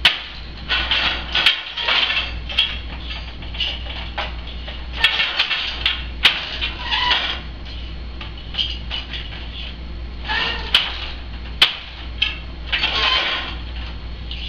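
An 8-shaft wooden countermarch loom being woven: several sharp wooden knocks and clacks from the beater, shafts and treadles, with rustling stretches between them.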